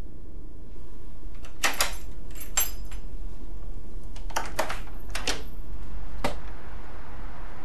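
A bunch of keys jangling against a wooden front door while a key turns in the lock: two short runs of metallic clicks and jingles about two seconds apart. A soft rushing noise rises near the end.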